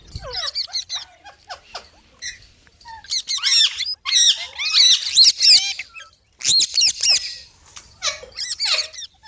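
Pet green Indian parakeets screeching: bursts of shrill, harsh calls that sweep up and down, coming in rapid runs with short gaps. This is the scolding-type call that the owner hears from them.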